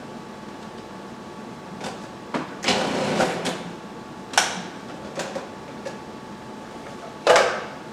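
Hard plastic clicks and knocks from a Waring food processor's clear cover and feed-chute pusher being handled, with a short scraping burst about three seconds in and a loud clack near the end.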